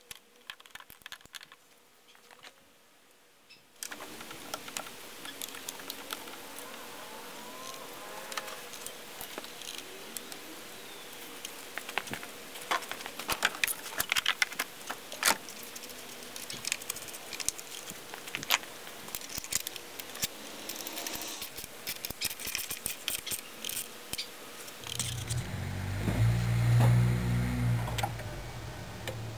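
Hand tools and metal parts clicking and clinking as connections under the hood are refastened. About 25 seconds in, a loud low engine rumble swells and fades over about four seconds: the swapped-in 3.0 Duratec V6 starting up.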